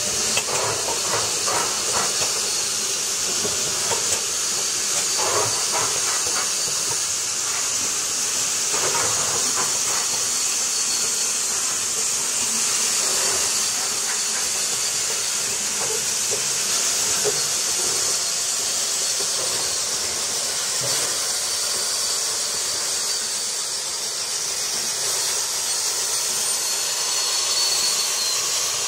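LMS Royal Scot class steam locomotive 46100 'Royal Scot' giving off a loud, steady hiss of steam escaping low at the front near its cylinders, with no exhaust beats. A few faint knocks come in the first ten seconds.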